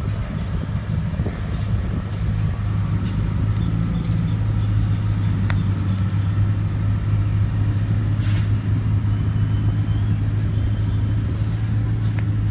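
An engine running steadily with a low, even hum, and a few faint clicks.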